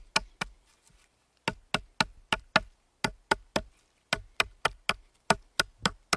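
Runs of sharp, even knocks, about three to four a second, broken by short pauses.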